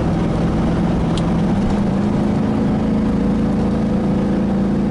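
Small-block V8 of a 1986 Chevy K-10 pickup running under steady road noise, heard from inside the cab. About two seconds in, the engine note steps up in pitch as the Gear Vendors overdrive drops out from third overdrive into straight third, a drop of about 500 RPM in overdrive. There is a brief click about a second in.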